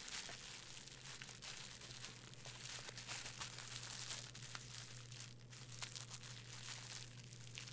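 Faint, continuous crinkling of plastic bubble wrap being unwrapped by hand, with a steady low hum underneath.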